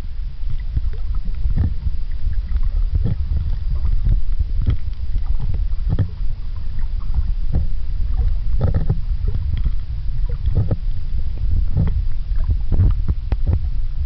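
Underwater sound through a camera housing: a steady low rumble of water movement, broken by many irregular small clicks and crackles.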